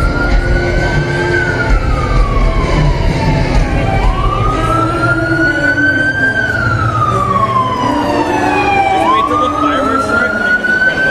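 Ambulance siren on a slow wail: the tone climbs quickly, then sinks slowly, repeating about every five seconds, over the noise of a large crowd.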